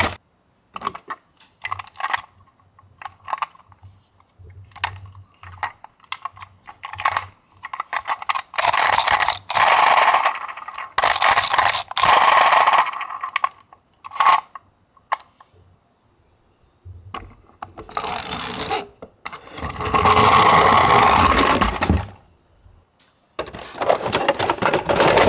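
Small toy ambulances being handled, with scattered clicks and knocks. Several stretches of rolling, scraping noise lasting a couple of seconds each, the loudest about nine to thirteen seconds in and again about twenty seconds in, as a miniature car runs down a slope.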